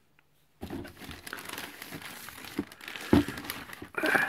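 Plastic packaging crinkling and rustling as items are handled and lifted out of a cardboard box, starting after a brief pause, with a soft knock about three seconds in and a louder crinkle near the end.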